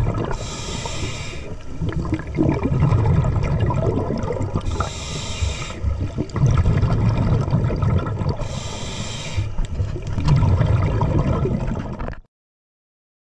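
Scuba diver breathing through a demand regulator underwater: a hissing inhale three times, about four seconds apart, with a low rumble of exhaled bubbles between them. The sound cuts off abruptly near the end.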